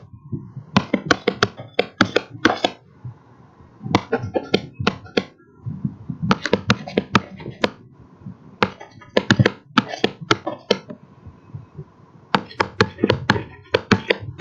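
Stylus tapping and clicking against a tablet screen during handwriting, in five bursts of quick taps with short pauses between them.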